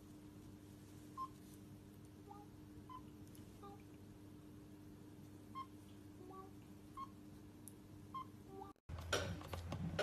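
Soft, short kissing squeaks, about one a second, over a steady low hum. Near the end an abrupt cut brings in louder rustling noise.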